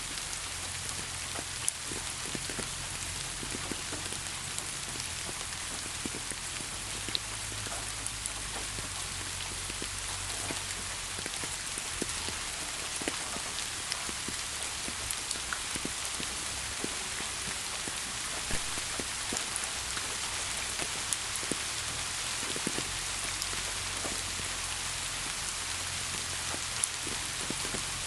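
Steady rain falling, an even hiss with many small drop ticks and pats scattered through it.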